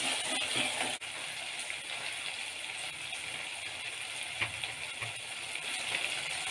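Onions, tomatoes and green chillies sizzling in hot oil in a metal kadai. A metal spatula scrapes through the pan for about the first second, then a steady frying hiss goes on, with an occasional faint pop.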